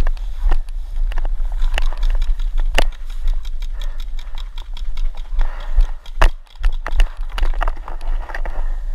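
Irregular sharp pops of paintball markers firing, a few a second, with grass brushing and rustling against the camera.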